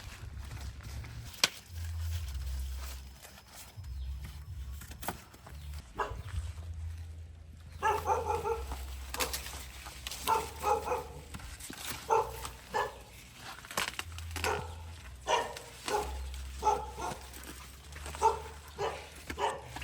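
A dog barking repeatedly in short barks, starting about eight seconds in, with a few clicks and footstep-like knocks before that.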